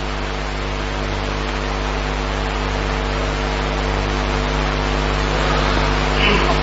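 Steady hiss and low electrical hum from an open microphone and sound system, growing slowly louder.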